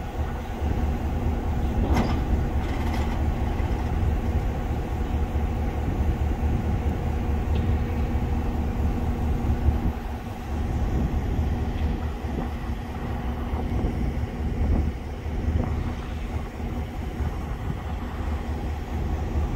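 EMD GP9 diesel-electric locomotive running as it slowly moves a cut of hopper cars, a steady low engine rumble. Two sharp metallic clanks come about two and three seconds in.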